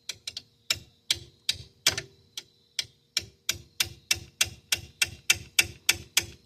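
Sharp metallic clicks from a hand tool working a seized bolt on the hub, which will not crack loose. The clicks come irregularly at first, then about three seconds in settle into a steady run of about four or five a second.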